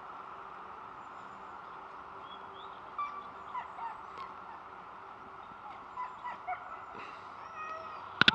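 Scattered short, high yelps and whines from excited sled dogs over a steady hiss, with a few loud sharp knocks near the end.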